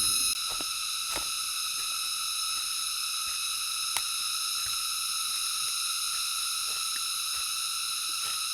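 Steady high-pitched insect chorus in the forest, several pitches layered into one continuous drone, with scattered faint clicks and one sharper click about four seconds in.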